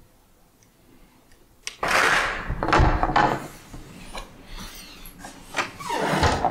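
Rustling and knocking from a camera being handled against a hooded sweatshirt, in two loud bouts, one about two seconds in and one near the end, with a few sharp clicks.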